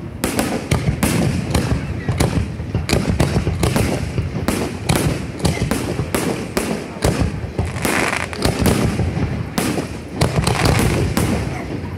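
Fireworks show: shells bursting in quick succession, several sharp bangs a second over a continuous low rumble.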